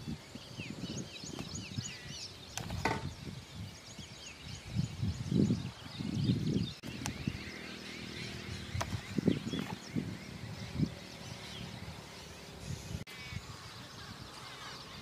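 Several birds chirping and singing, with irregular low rumbles coming and going underneath.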